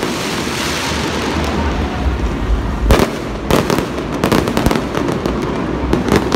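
Fireworks display going off: a dense crackling of bursting shells at first, then a string of sharp bangs about three seconds in and again near the end.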